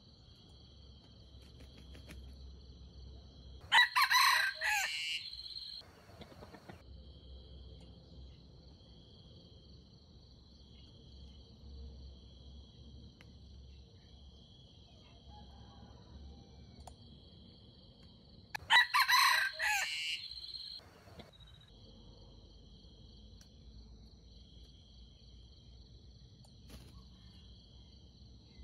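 Red junglefowl rooster crowing twice, each crow short and about two seconds long, some fifteen seconds apart. Steady high insect trilling continues underneath.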